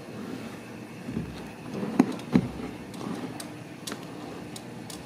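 Carpet-covered cat condo being moved by hand: rustling and handling noise with scattered clicks, and two knocks in quick succession about two seconds in.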